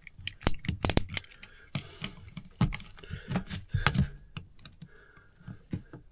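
A knife cutting and prying at a used filter to open it: irregular sharp clicks, taps and scrapes, the strongest around one second in and again near four seconds.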